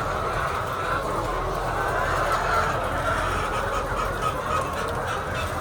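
Steady din of a large flock of laying hens clucking and calling together in a poultry shed.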